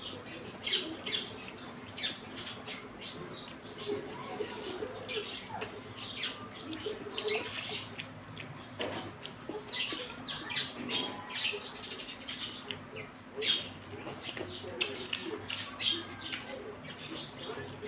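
Close-up mouth sounds of eating boiled banana blossom by hand: wet chewing with quick, irregular smacks and clicks, several a second, over a faint steady low hum.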